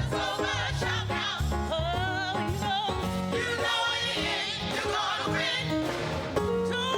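Gospel praise-and-worship music: voices singing with vibrato over sustained low instrumental accompaniment.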